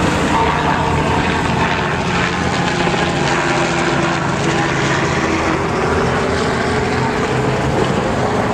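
Diesel engine of a three-axle off-road trial truck running under load as it crawls over a dirt mound, its note drifting up and down a little.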